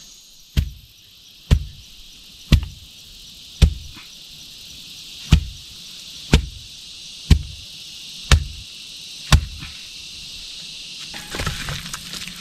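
Nine sharp, evenly spaced blows about a second apart, like a tool striking wood, over the steady chirring of crickets. Light rustling and crinkling starts near the end.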